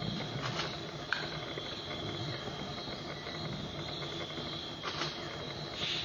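Insects trilling steadily at a high pitch, cricket-like, with a few faint short clicks.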